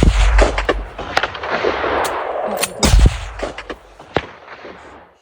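Two rifle shots about three seconds apart, the first right at the start, each a loud crack with a deep boom: follow-up shots to put down a wounded bull moose standing in the water.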